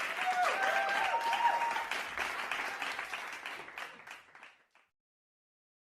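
A group of children cheering and clapping, with a few high shouts rising and falling early on, dying away to silence about four and a half seconds in.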